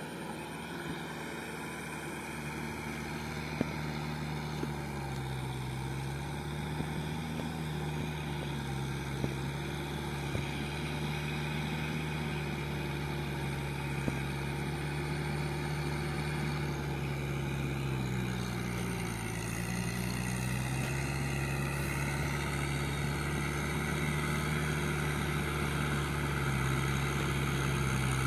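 Kubota M6040SU tractor's diesel engine running under load as it works through a flooded rice paddy, its steady drone dipping in pitch briefly twice and growing gradually louder as it comes closer.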